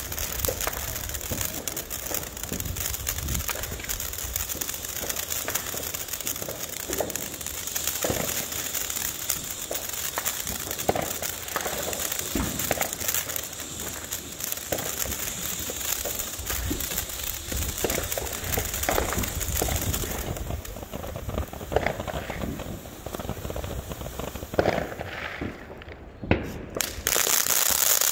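Black Cat Neon Dragon fountain firework spraying sparks: a continuous hiss with scattered crackles and pops throughout. It thins out near the end, then a loud hiss starts again just before the end.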